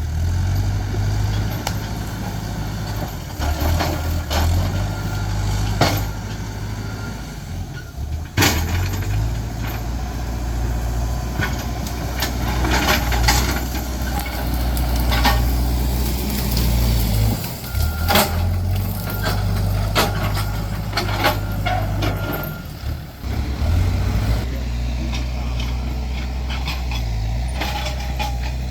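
Heavy diesel earthmoving machine working at land clearing: a steady low engine drone that rises and falls with load, with repeated sharp clanks and knocks.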